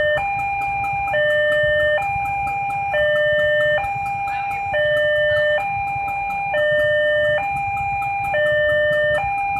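Railway level-crossing alarm sounding its electronic two-tone warning, alternating a lower and a higher tone, each held just under a second, while trains pass. A low rumble runs beneath.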